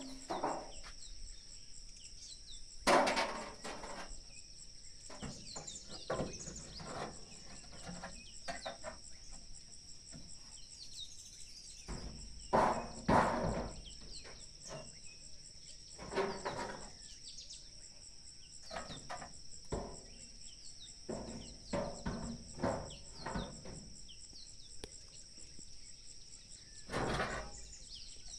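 Insects chirring steadily at a high pitch, with scattered knocks and thumps from work going on. The loudest knocks come a few seconds in, around the middle and near the end.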